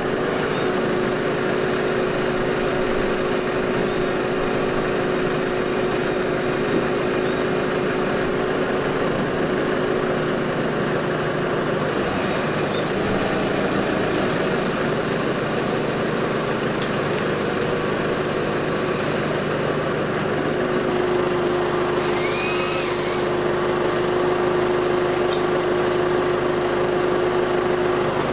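Chainsaw running at a steady pitch, cutting into wood.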